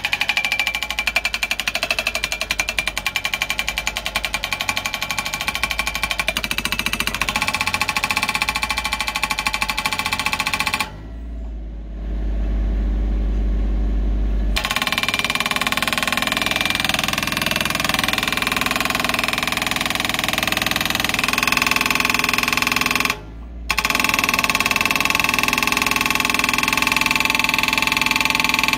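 Excavator-mounted hydraulic breaker hammering rapidly on bedrock, breaking it up, with the digger's engine running underneath. The hammering stops for a few seconds about eleven seconds in, stops again briefly later, and resumes each time.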